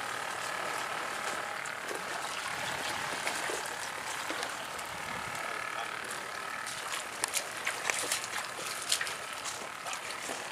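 Steady seaside background of water hiss with faint continuous high calls. A run of sharp clicks and knocks comes about seven to nine seconds in.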